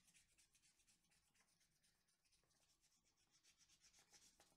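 Very faint scratching of a metal coin rubbed back and forth over the latex panel of a scratch-off card, in quick short strokes that thin out midway and come faster and a little louder near the end.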